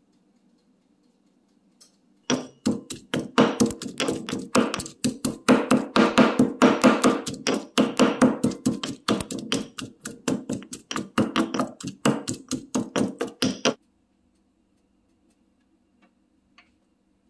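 Stone mortar and pestle pounding garlic: rapid, loud knocks of the pestle against the stone bowl, about five a second. They start about two seconds in and stop sharply about eleven seconds later.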